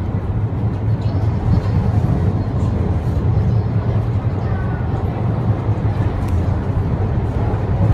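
Wuppertal suspension railway car running: a steady low rumble with no breaks.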